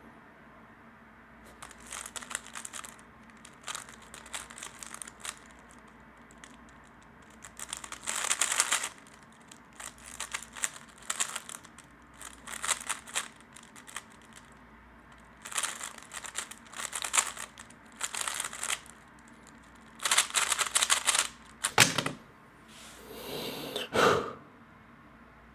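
A 3x3 speedcube being turned fast by hand, its layers clacking in rapid bursts of turns with short pauses between them. Near the end there is a sharp knock, then a short scraping sound.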